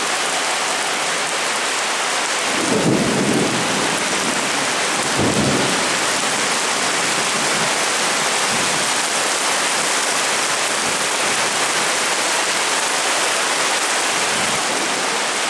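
Heavy rain pouring steadily onto paving, a dense even hiss. Two brief low rumbles break through about two and a half and five seconds in.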